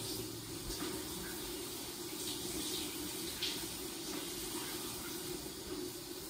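Shower running steadily, a constant hiss of water spray with a few brighter splashes about two and a half and three and a half seconds in.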